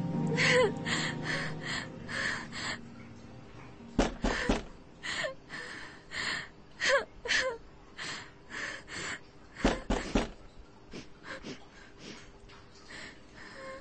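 A woman breathing hard in quick, ragged gasps, with a few short whimpers. Two dull knocks fall about four seconds in and again about ten seconds in.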